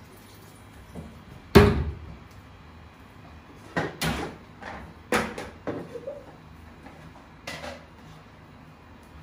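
Plastic bowls and dishes being handled at a kitchen sink and counter: about half a dozen scattered knocks and clatters, the loudest about one and a half seconds in.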